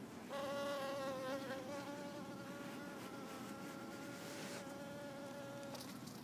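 Honeybee buzzing: a steady, slightly wavering hum that starts just after the beginning, is loudest in its first second or so, and stops shortly before the end.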